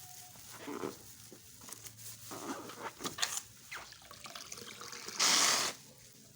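Slime being squished and worked by hand, with irregular small wet, sticky clicks and squelches. A brief louder rushing noise comes about five seconds in.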